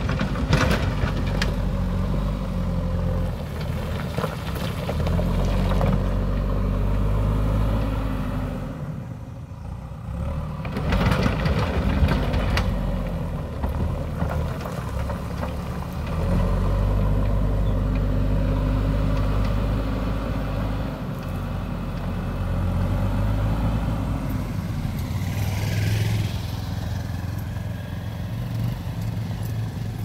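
JCB backhoe loader's diesel engine working under load, its note swelling and easing as the front bucket pushes and lifts broken rock and earth, with the clatter of rocks a few times. Near the end a motorcycle's engine comes up alongside.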